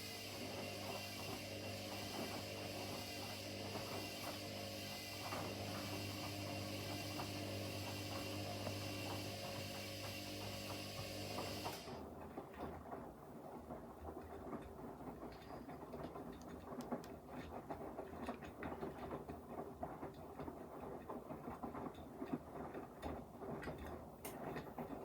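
Washing machines running a wash cycle: a steady hum with a high hiss cuts off abruptly about halfway through, leaving the uneven clicking and rumbling of the drum turning.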